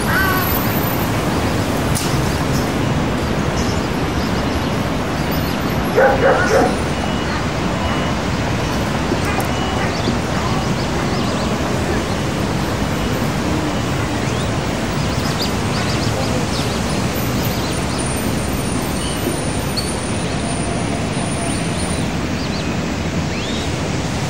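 Steady outdoor background noise, with a dog barking briefly about six seconds in.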